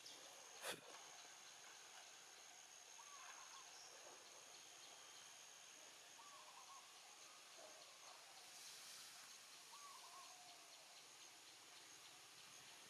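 Near silence with faint outdoor ambience: a steady high insect drone that fades about two-thirds through, and faint short calls from a distant bird every couple of seconds. A single sharp knock comes just under a second in.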